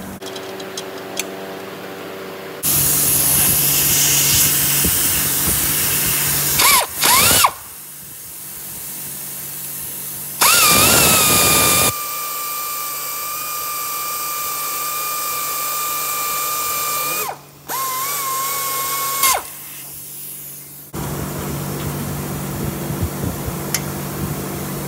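Handheld power tool run in several bursts, each starting and stopping abruptly. The bursts are broad noisy stretches and a steady motor whine, one held about five seconds and another about a second and a half, each wavering in pitch as the motor spins up.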